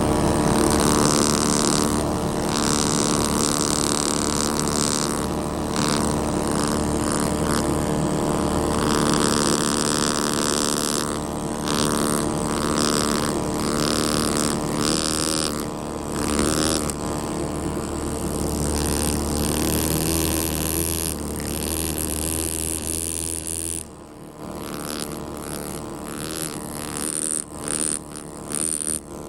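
Pneumatic air tool chipping stone away from an ammonite fossil, running with a steady buzz and hiss over a low hum. About 24 seconds in the hum stops and the tool runs in short bursts.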